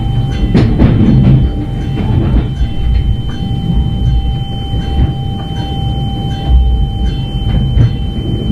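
Cabin sound of a Stadler GTW diesel-electric commuter railcar running along the track: a steady low rumble with occasional faint clicks from the rails and a thin steady whine above it.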